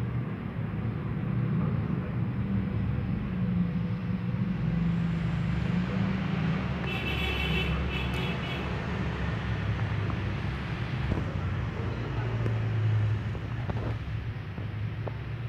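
Steady low engine rumble of road traffic, with a brief high-pitched sound in two short parts about seven seconds in.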